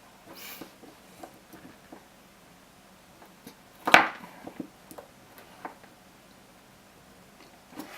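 Scattered small clicks and knocks from handling the salvaged Sony US18650GR 18650 cells and the test gear on a work surface, with one louder knock about four seconds in.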